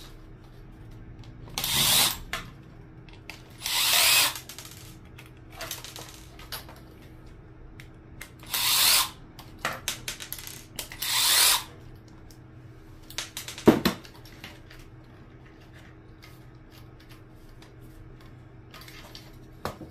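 Cordless electric screwdriver running in four short bursts of about half a second to a second each, backing out the screws of a speaker cabinet. Small clicks of screws and plastic parts fall between the bursts, with one sharper click about two-thirds of the way through.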